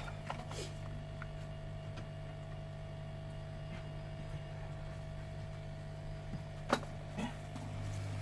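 Steady electrical hum with a faint high tone above it, broken by a few small clicks and one sharp click near the end.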